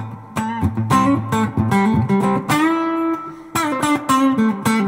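Fender Telecaster played through an Electro Harmonix Soul Food overdrive into a tube amp: lively single-note lead lines with a mild, slightly fizzy drive. Quick picked notes surround one note held for about a second in the middle.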